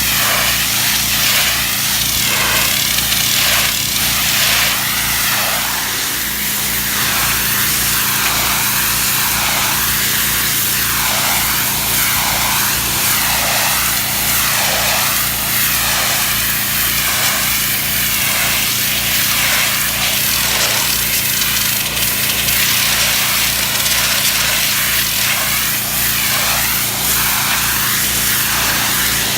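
Pressure washer running under a steady engine drone, its high-pressure spray hissing on brick. The hiss swells and fades roughly once a second.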